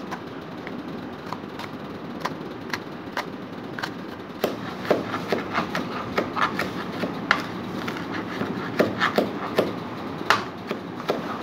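Knife chopping onions on a cutting board: sharp taps of the blade striking the board, sparse at first, then quicker and louder from about four seconds in, at about three a second, as the diced onion is chopped finer. A steady hiss sits underneath.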